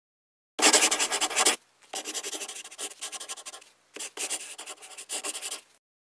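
Scratchy scribbling sound effect, in three runs with short pauses between them. The first run is the loudest, and the sound cuts off abruptly just before the end.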